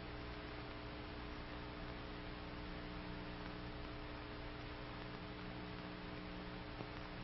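Faint steady electrical hum with an even hiss, the noise floor of an old film soundtrack; no gunfire or mechanical sound.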